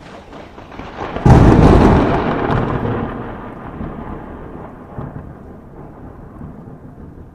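Sound effect over an end screen: a rising rush breaks into a loud rumbling crash a little over a second in, then fades away slowly.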